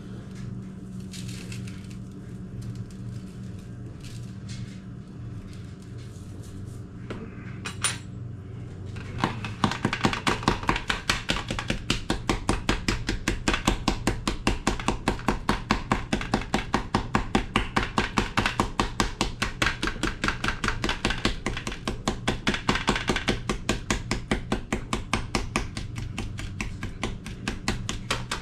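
Knife chopping rapidly on a cutting board, starting about nine seconds in: a fast, even run of sharp strikes, about five a second. A steady low hum runs underneath.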